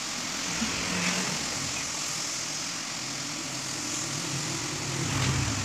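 A motor engine hums steadily over a constant hiss, swelling a little about five seconds in.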